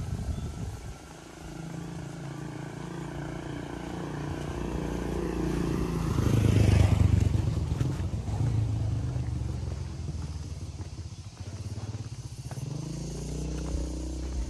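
A motor vehicle's engine passing close by, growing louder to a peak about seven seconds in and then fading; a second engine approaches near the end.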